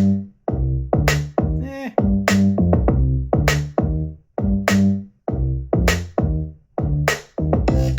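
Electronic hip-hop beat played through a JBL Xtreme 4 portable Bluetooth speaker at full volume: hard drum-machine hits with heavy bass notes, about two a second. At this volume the reviewer hears the speaker losing bass.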